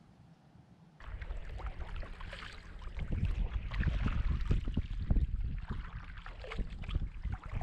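Kayak being paddled: the double-bladed paddle dipping and splashing in the water in irregular strokes, starting suddenly about a second in.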